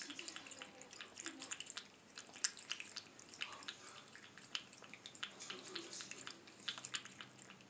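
Russian Blue cat lapping water from a cup: a quick, irregular run of small wet clicks and drips from its tongue.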